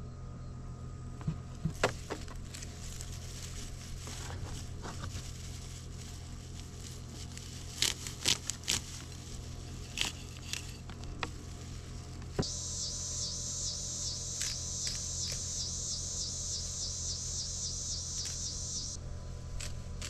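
Scattered snips and rustles from cutting rice paddy herb stems, over a low steady hum. About twelve seconds in, a high pulsing buzz starts, runs for several seconds and cuts off suddenly.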